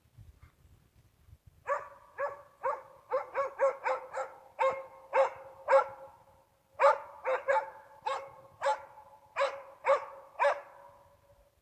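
Jämthund (Swedish elkhound) bay barking at a bull moose: a steady run of sharp barks, about two a second, that starts a couple of seconds in and pauses briefly midway. This is the dog's ståndskall, the bark that tells the hunter the moose is standing at bay.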